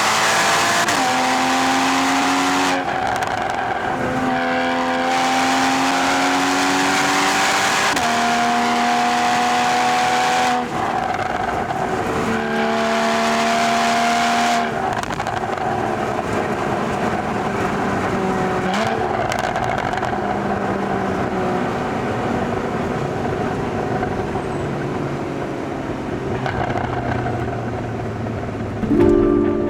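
Porsche 981 Boxster GTS flat-six engine pulling through the gears: the engine note climbs and then drops at upshifts about 3, 11 and 15 seconds in. After that it runs more quietly under tyre and road noise, with a short loud rise in engine note near the end.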